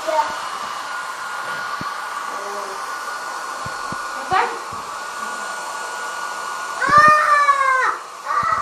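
Handheld hair dryer running steadily with a high whine. About seven seconds in, a loud, high, drawn-out cry lasting about a second rises over it.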